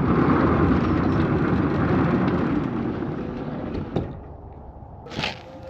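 Large sliding shed door rolling along its top runner, a rumbling scrape for about four seconds that fades out, then a knock. The door has just been put back on its runner after coming off at the top.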